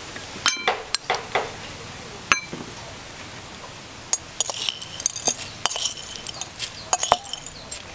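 Metal spoon clinking against a mortar and a plate as sugar and then roasted peanuts are spooned into the mortar. A few separate ringing clinks come first, then a quicker run of clinks and scrapes from about four seconds in.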